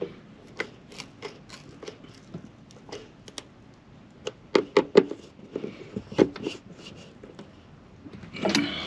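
Irregular small clicks and creaks of a hand screwdriver turning a screw into a metal roller-shade mounting bracket on a hollow RV cabinet, the screw being hand-tightened so it does not strip out. A few louder clicks come a little after halfway.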